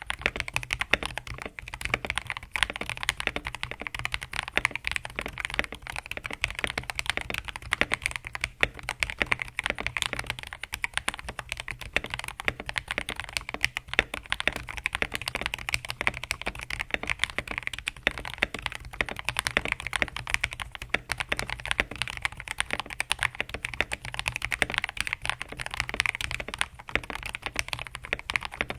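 Continuous fast typing on a modded TM680 mechanical keyboard with lubed KTT Strawberry linear switches and POM jelly keycaps: a dense, steady stream of key presses with no gaps. The board is dampened with a tempest tape mod, PE foam, EVA case foam and O-rings, with lubed stabilisers.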